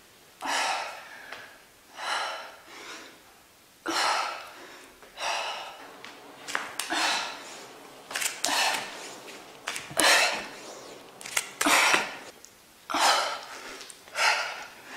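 A woman breathing hard during push-ups: a short, forceful exhalation every second or so, in time with the reps, with a few sharp clicks in the middle.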